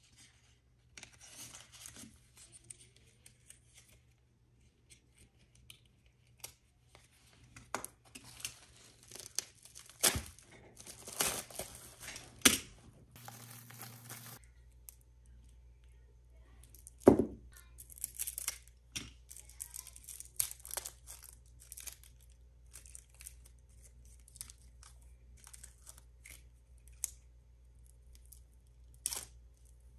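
Paper being torn and crinkled by hand: a run of short, irregular rips and rustles with a few sharper snaps.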